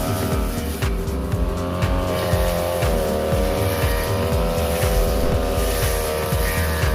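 Brush cutter's small petrol engine running at high speed, its pitch sagging briefly a couple of times as the blade takes the load of the grass.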